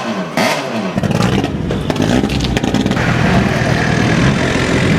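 Rally car on a gravel stage under hard acceleration: the engine rises in pitch over the first second, then runs loud at high revs. Sharp clicks, likely stones, come through in the first two seconds.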